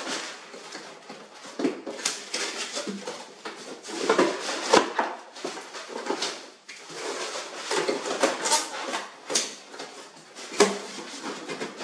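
Hands rummaging through packing inside a large cardboard box: irregular rustling, scraping and crackling of cardboard and packing material, with a few sharper knocks, the loudest about five seconds in and another near the end.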